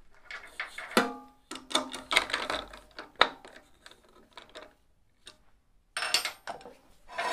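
Irregular knocks and clatters from handling parts at a wood lathe while re-setting the workpiece off-axis, with one sharp clank about a second in that rings briefly.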